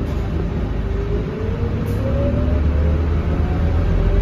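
Scania K230UB bus's diesel engine and driveline heard from inside the cabin, accelerating: a whine climbs in pitch from about a second in over a steady low drone, getting slightly louder.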